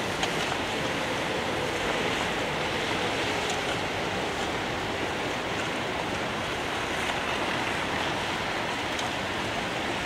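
Steady city street noise in the snow: an even hiss and rumble of traffic on slushy roads, with a few faint knocks.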